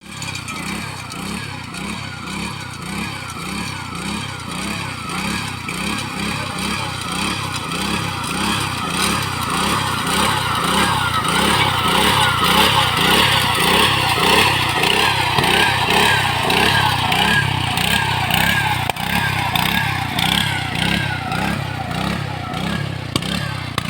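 Combine harvester running in a rice paddy, its engine and threshing machinery giving a steady rhythmic pulse of about two to three beats a second. It grows louder toward the middle, as if the machine is drawing closer, then eases off slightly.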